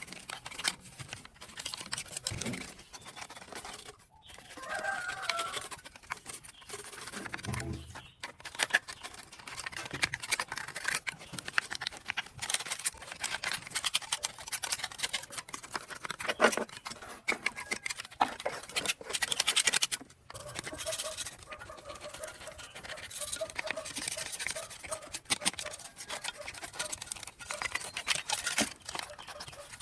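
Scraping and clicking of hand work on old diesel engine parts, with a chicken clucking in the background a few times.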